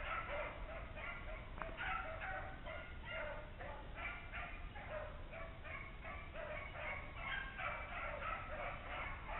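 A pack of beagles baying on a swamp rabbit's trail, many short overlapping calls in a steady, fairly faint chorus.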